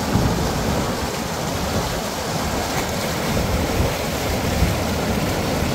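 Wind buffeting the microphone: a steady rushing noise with an unsteady low rumble.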